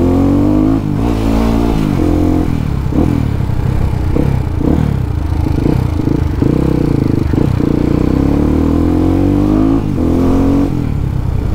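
Yamaha WR155R's single-cylinder four-stroke engine, heard from the rider's helmet while riding, revving up and easing off so that its pitch rises and falls several times.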